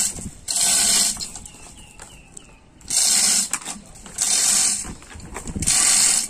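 Manual chain hoist being worked hand over hand to haul a boat ashore: its chain rattles and its ratchet clicks in four short bursts.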